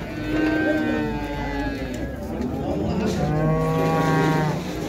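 Young bulls mooing: two long moos, the second lower-pitched.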